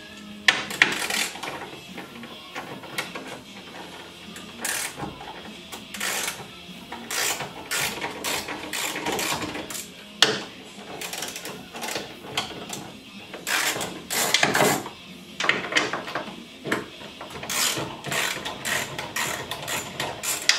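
Hand socket ratchet clicking in repeated runs, stroke after stroke, as 14 mm bolts are backed out, with an occasional sharper metal clink.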